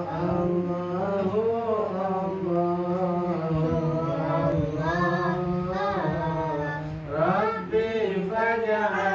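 A voice singing sholawat, Islamic devotional praise, in long, ornamented phrases that slide between notes over a steady low held tone.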